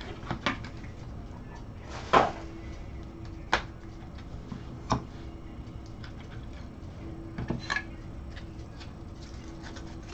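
Gloved hands handling a trading-card box's foam insert and clear plastic card cases: a series of irregular clicks and knocks of plastic on plastic and on the table, the loudest about two seconds in.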